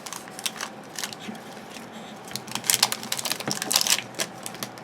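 Crinkling and rustling of trading card packs and cards being handled, in a run of quick crackles that is densest from about two and a half to four seconds in.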